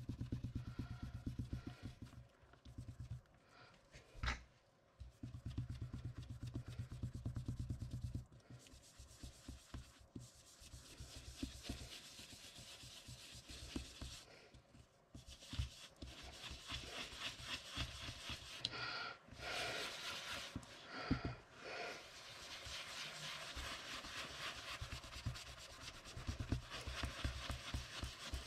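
Ink blending brush scrubbing ink onto card stock in rapid, repeated short strokes, paper rubbing against the bristles.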